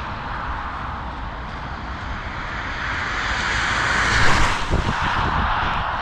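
A steady rushing noise that swells to a peak about four seconds in and then eases, with a few low knocks just after the peak.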